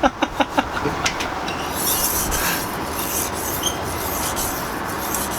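Steel knife blade stroked steadily back and forth across a wet whetstone, a continuous gritty rubbing, with a few light ticks in the first second.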